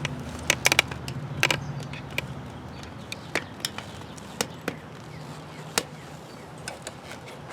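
A small flathead screwdriver clicking and tapping against a bicycle wheel's rim and tire as it is worked under the tire bead, in irregular sharp clicks that thin out after the first couple of seconds.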